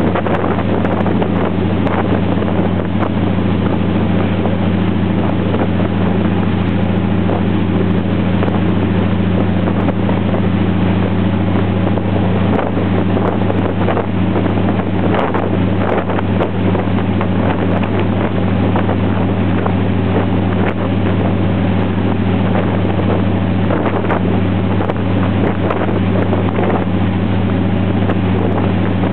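Passenger ferry's engine running at a steady cruising drone, with a low, even hum throughout. Wind noise on the microphone and rushing water form a hiss over it.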